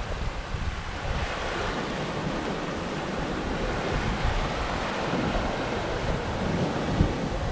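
Sea water rushing along the hull of a Hallberg-Rassy 54 sailing yacht under way, with wind buffeting the microphone. A brief low thump comes near the end.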